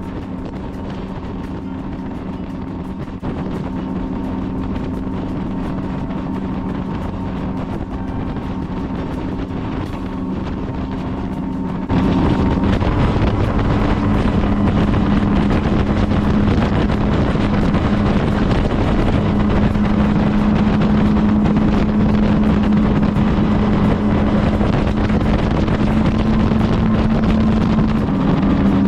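Outboard motor of a boat running under way, a steady engine hum over rushing water and wind on the microphone. The engine noise gets abruptly louder about twelve seconds in and stays loud.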